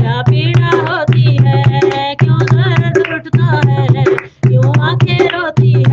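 A devotional Hindi bhajan: a voice sings a melodic line over tabla strokes and a steady low drone. The music drops out briefly about two-thirds of the way through.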